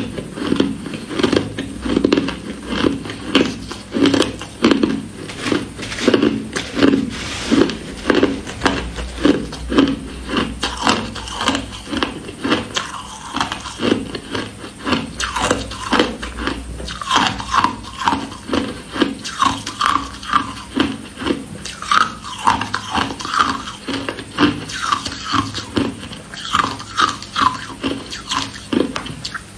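Crushed ice being bitten and chewed close to the microphone, a quick, even run of crunches about two a second. In the second half a metal spoon scrapes and scoops through the crushed ice in the plastic tub.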